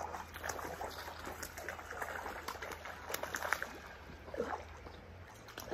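Creek water running and trickling, with scattered small splashes and sharp clicks.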